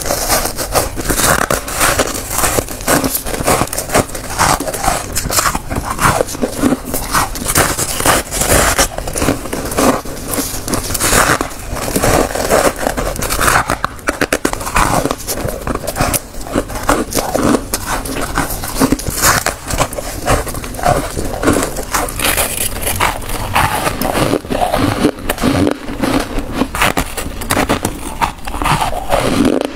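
Chunks of freezer frost being bitten and chewed close to a clip-on microphone: a steady run of crisp crunches, one after another, with squeaky, packed-ice bites.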